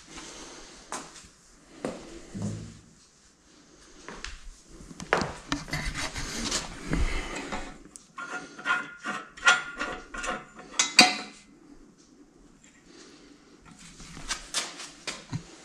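Metal clinking, clicking and scraping as a small wagon's steel steering tie rod and its fittings are turned and adjusted by hand to set the wheel alignment. A burst of sharp metallic clicks comes about eight to eleven seconds in and is the loudest part.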